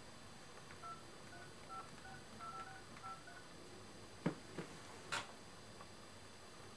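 A phone's touch-tone keypad beeping quietly as a number is dialled: about nine short key tones in quick succession. A few seconds later come three light knocks from handling the handset.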